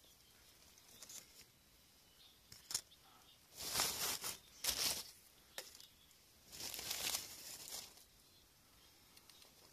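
Crinkly packaging rustling as it is handled, in two main spells about four and seven seconds in, with a couple of sharp clicks between.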